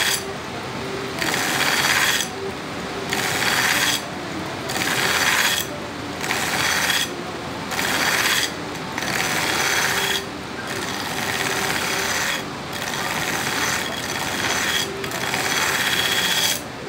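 Steel knife blade ground on the abrasive belt of a belt grinder in repeated passes, each about a second long, roughly every second and a half, with the grinder running steadily between passes. The passes are grinding a distal taper, thinning the blade gradually toward the tip.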